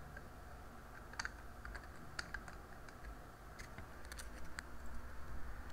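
Computer keyboard keystrokes: a few scattered, separate clicks as a word is typed, over a faint low hum.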